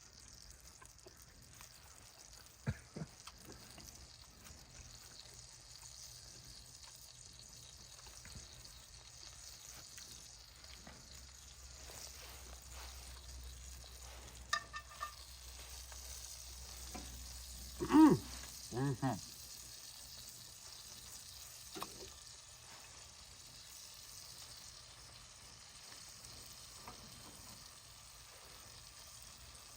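Butter sizzling steadily in a cast iron skillet, a faint even hiss. A few short louder sounds break in about halfway through.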